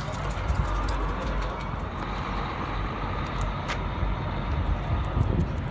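Steady low rumble of vehicle engines, with a few light clicks.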